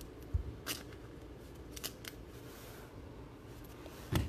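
Trading cards being handled on a table: a few soft clicks and scrapes of card stock as cards are moved aside and set down.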